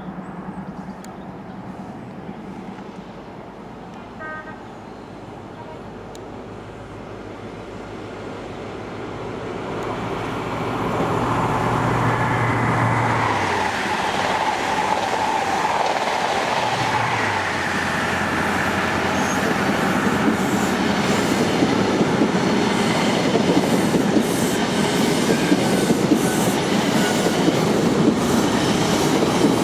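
A First Great Western diesel passenger train approaching and passing at speed. It grows louder from about eight seconds in, its engines running from about ten seconds in, then gives way to the rush and rhythmic clatter of wheels on rail as the carriages go by.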